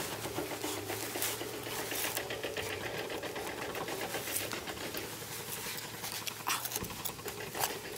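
Gloved hands scraping and raking through dry, crumbly soil, then a small metal trowel scraping the dirt: a dense, rapid scratching.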